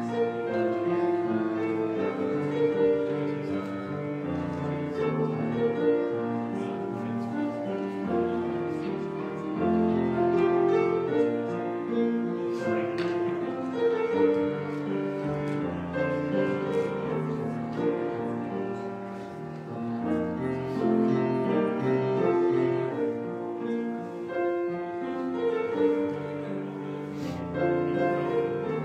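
Grand piano played solo: a flowing piece of held notes and chords.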